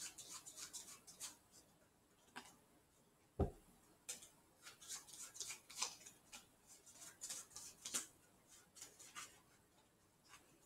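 A deck of playing cards being handled: faint clusters of crisp card snaps and rustles, with one dull thump about three and a half seconds in.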